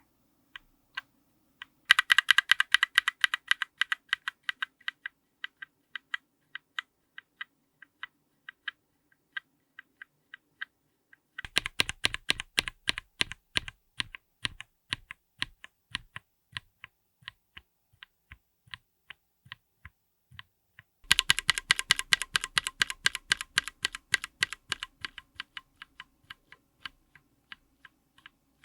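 Close-miked linear mechanical keyboard switches with GMK keycaps being typed on, three different switches in turn. Each starts with a fast flurry of keystrokes and slows to single, separate presses. The second and third switches sound deeper than the first.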